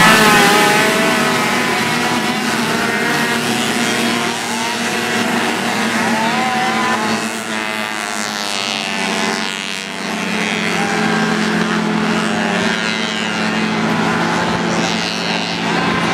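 Several vintage snowmobiles racing at once, their two-stroke engines revving together with pitches rising and falling over one another.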